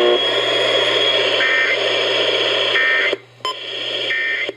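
Radio receiver hissing with static while three short warbling data bursts of an EAS end-of-message code sound about a second and a half apart, closing the relayed weather warning. The audio drops out briefly twice near the end, each time with a click.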